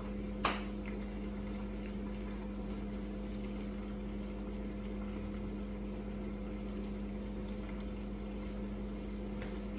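Steady electrical hum of a kitchen appliance with a faint even hiss, and one short click about half a second in.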